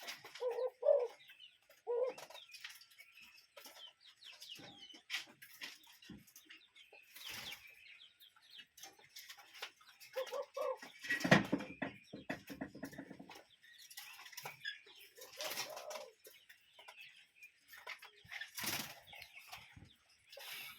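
A bird calling in short, low, pitched notes a few times, including a pair near the start. Short noisy rustling bursts come in between, the loudest about eleven seconds in.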